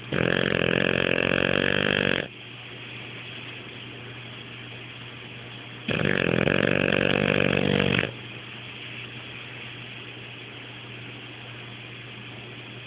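French bulldog snoring in its sleep: two loud snores, each about two seconds long, some six seconds apart, with a steady hiss between them. The loud snoring is typical of this flat-faced breed.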